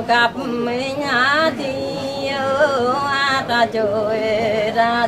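A solo voice singing a Mường folk song (hát Mường): long held notes that waver and slide, in phrases with short breaks between them.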